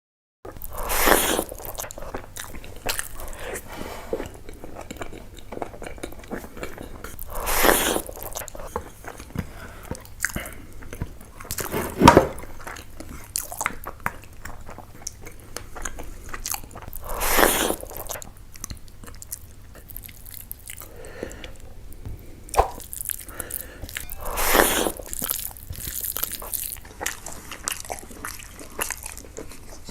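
Close-miked eating of rice and fish curry: steady chewing, crunching and wet mouth clicks, with five louder mouthful sounds spaced about five to seven seconds apart.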